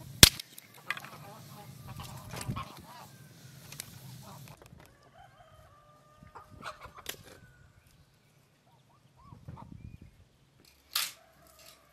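Wood fire crackling and snapping in a clay tandoor oven, with one loud snap near the start. After about four and a half seconds the crackling stops, and chickens cluck and a rooster crows.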